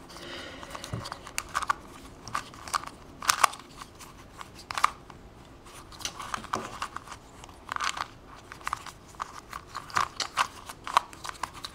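Plastic pieces of a stickerless pyramid-shaped twisty puzzle clicking and clacking as it is turned by hand, in a quick, irregular run of sharp clicks.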